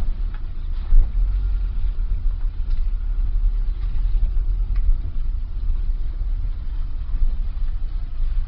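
2001 Nissan Sentra SE's SR20DE 2.0-litre four-cylinder engine idling roughly, an uneven low rumble that wavers in strength. The rough idle was traced to a weak mass airflow sensor.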